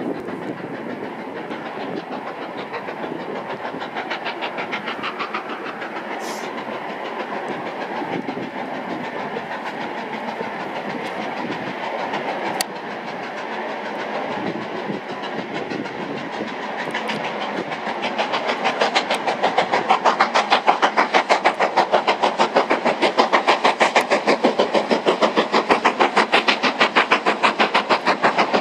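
LMS Black 5 steam locomotive working hard, its chimney exhaust beating in a fast, even rhythm. The beats grow clearly louder about two-thirds of the way through as the engine draws near.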